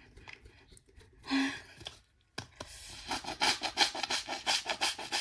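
A short noise about a second in, then quick, rhythmic scratchy rubbing strokes, about five a second, starting a couple of seconds in.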